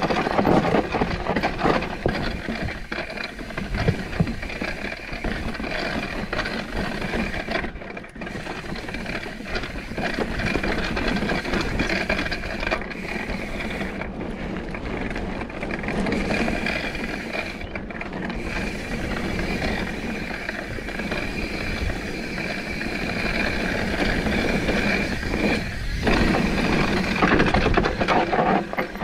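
Mountain bike ridden over rocky singletrack: tyres rolling and crunching over rock and dirt, with the bike's chain and parts rattling and clicking throughout.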